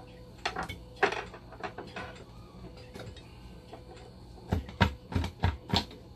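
Clicks and knocks of hands handling a dialysis machine's blood pump module and its DC motor on a workbench, with a run of five or six heavier knocks about four and a half seconds in.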